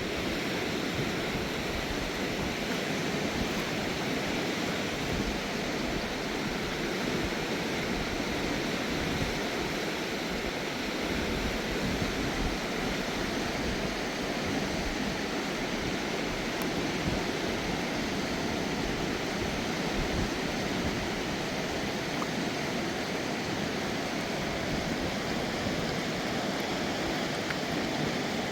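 Fast-flowing mountain river rushing steadily, an even, unbroken wash of water noise.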